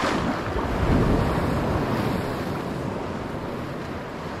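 Wind buffeting the microphone over shallow sea water lapping, with a gust swelling about a second in and easing off.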